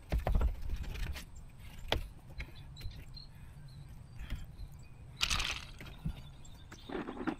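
A knife cutting a fish fillet on a cutting board: a few knocks against the board near the start and about two seconds in, then two longer scraping strokes, about five seconds in and near the end.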